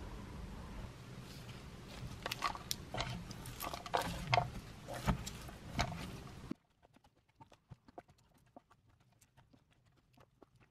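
Cubes of beet and radish being tossed with seasonings in a container: irregular clacks and knocks of the vegetable pieces against each other and the container. The sound cuts off abruptly about two-thirds of the way through, leaving only faint ticks.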